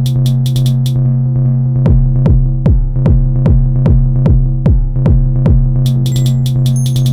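Elektron Model:Cycles groovebox playing a hypnotic techno pattern over a steady low bass drone. The hi-hats drop out about a second in, a kick drum comes in near two seconds with about two and a half beats a second, each kick dropping in pitch, and the hi-hats and short synth blips come back near six seconds.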